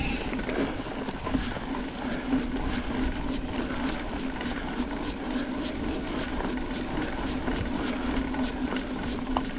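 Mountain bike riding along a dirt trail: steady tyre and rolling noise with a regular light ticking about twice a second.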